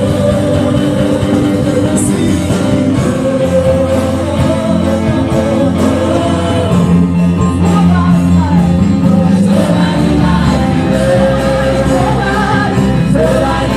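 Live gospel worship music: a woman leading the song with backing women's voices over a live band, singing continuously.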